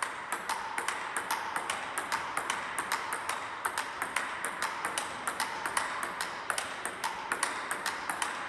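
Table tennis ball being struck in repeated forehand strokes and bouncing on the table: sharp clicks in a steady rhythm of about three a second, over a steady hiss.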